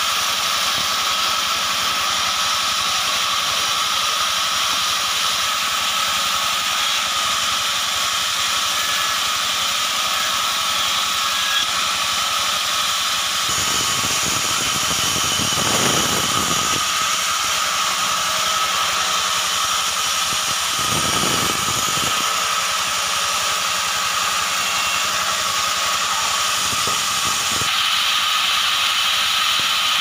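Band saw running steadily with a loud hissing drone while its blade cuts through short log sections. A deeper sound joins in around the middle and again a few seconds later as the blade works through the wood.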